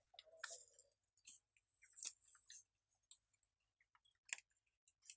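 Near silence with a few faint, irregular clicks.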